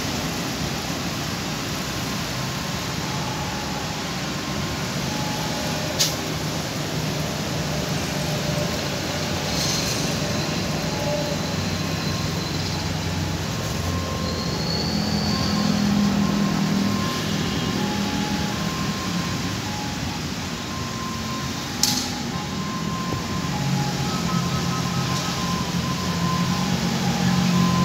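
Electric commuter train running on the track: a steady rumble and rush that swells and eases, with two sharp clicks.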